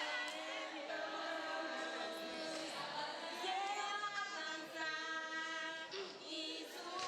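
Choir singing, several voices holding long notes together and moving from note to note.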